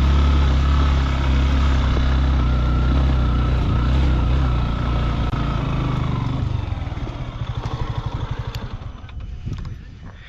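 Motorcycle engine running steadily, then easing off about six and a half seconds in to a slow, even putter of separate firing pulses as it idles. It fades toward the end.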